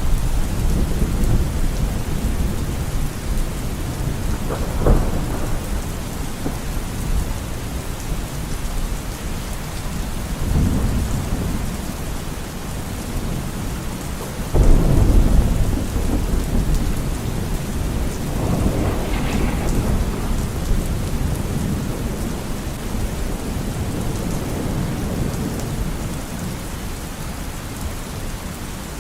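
Heavy monsoon rain falling steadily, with repeated rolls of thunder rumbling through it. A sharper clap comes about five seconds in, and the loudest peal comes about halfway through.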